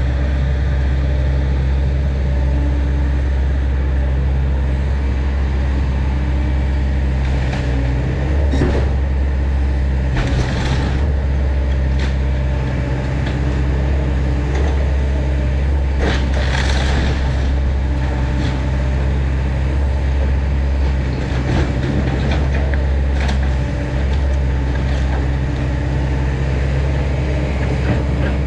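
Kobelco SK210 excavator's diesel engine running steadily under work, with several short louder bursts of noise about 8, 10 and 16 seconds in.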